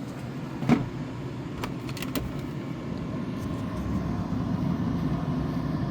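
3D printer running with a steady low hum, with one sharp click about a second in and a few fainter clicks soon after.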